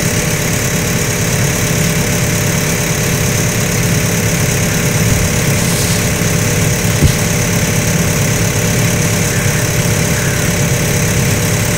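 A motor engine idling steadily and evenly, with no change in speed.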